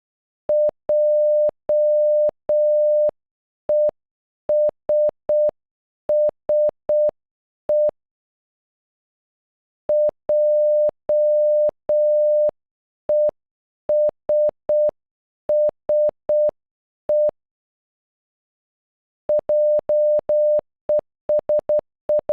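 Morse code for "JESSE" (.--- . ... ... .) sent as a single steady beep tone, each short or long beep starting and stopping with a slight click. The word is played twice at half speed, with a pause between, then starts again at normal speed near the end.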